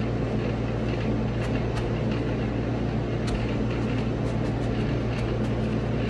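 Window air conditioner running with a steady low hum and rushing air, with faint scattered ticks over it.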